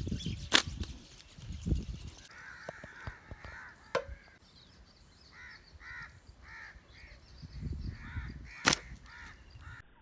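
Sharp slingshot snaps, one about half a second in and another near the end, with a bird calling over and over in between at roughly two calls a second.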